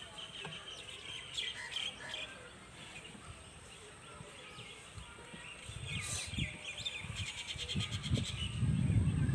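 Small birds chirping and twittering, with a quick rattling trill about seven seconds in. A low rumble grows louder near the end.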